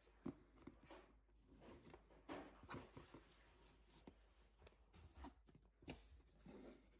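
Faint rustles and light taps of a cardboard shoe box being handled as its fabric ribbon is pulled off, in a series of short, soft sounds a second or so apart.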